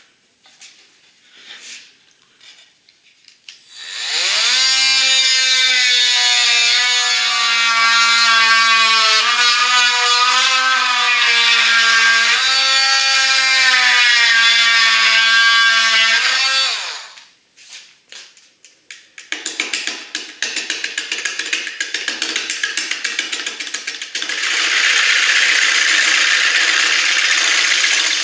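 A handheld power drill whines for about thirteen seconds, its pitch rising as it spins up and sagging and recovering under load as it drives screws through a plywood plate into the holly-and-epoxy casting. After a short pause, a turning gouge cuts the spinning wood-and-epoxy casting on the lathe, first with rapid ragged clicking, then as a steady hiss.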